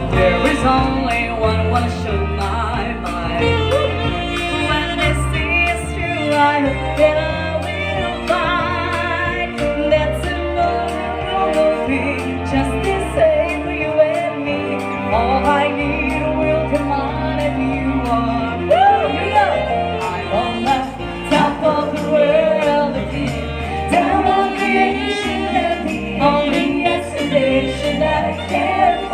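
A pop song playing, a singing voice over accompaniment with a steady beat.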